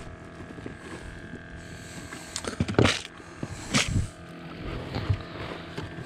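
Handling noise as a small rockfish is worked off the hook by hand: two loud, short scuffs and knocks about a second apart, over a faint steady hum.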